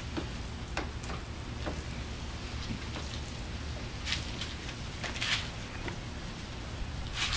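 Soapy sponges wiping a car's wet side panel and water dripping and splashing onto the wet pavement, heard as short scattered splashes over a steady low hum.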